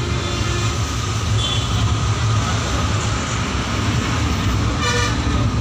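Train running on a river bridge, heard from inside a passenger carriage: a steady low rumble with rattling noise. A brief higher-pitched sound comes near the end.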